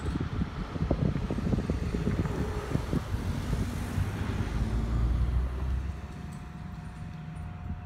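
A road vehicle passes, swelling and fading over low gusty rumble. As it dies away in the second half, the steady hum of the solar facility's substation transformer comes through: a low drone with a thin higher whine.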